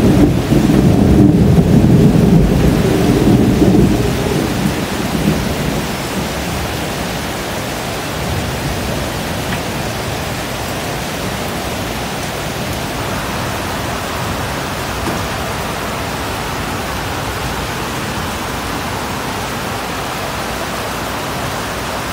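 Steady heavy rain falling, with a low rumble of thunder over the first few seconds that dies away about five seconds in.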